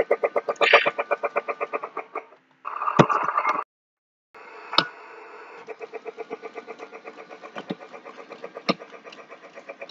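Toy Polar Express train running on its track: a fast, even chugging pulse over a steady motor hum, with a few sharp knocks. The sound cuts out completely for a moment a little past the middle.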